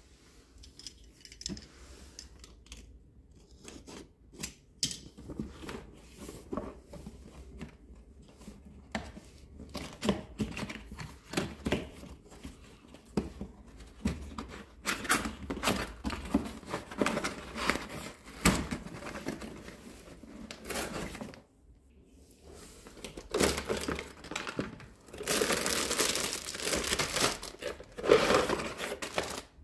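Cardboard toy box being opened by hand: short scratches, clicks and tearing of the cardboard and its flaps, with plastic packaging crinkling. The sounds grow denser and louder in the last few seconds as the toy pieces come out.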